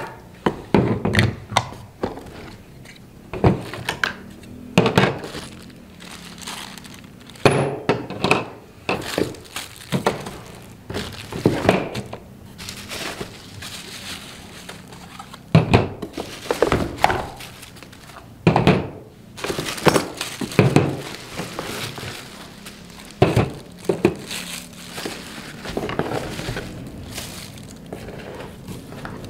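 Plastic trimmer parts (wheels, blade guards, battery packs) and a metal saw blade set down one after another on a table: irregular knocks and thunks about every second or two, with some crinkling of the plastic bags that hold the hardware.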